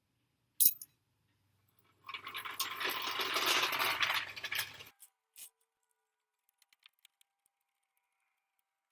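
A metal floor jack clanks once sharply, then rattles and scrapes for about three seconds as it is rolled into place under the truck.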